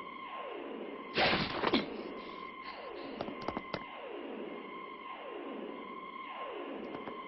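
Soundtrack of an animated film: a repeating electronic falling tone, about one every one and a half seconds, over a steady high tone, like a pulsing alarm or suspense effect. A short noisy burst about a second in, and a few sharp clicks later on.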